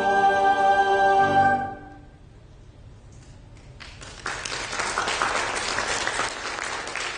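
A church choir with piano holds its final chord, which fades away about two seconds in. After a short hush, the congregation breaks into applause from about four seconds in.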